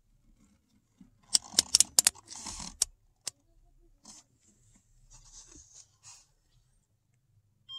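Rotary selector dial of a Greenlee digital multimeter being turned by a gloved hand, clicking quickly through several detents, then a couple of single clicks and faint handling rustle. Right at the end the meter's continuity beeper starts a steady high tone.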